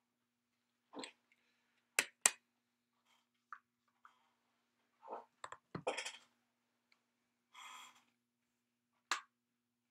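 A few scattered light clicks and taps, over a faint steady hum.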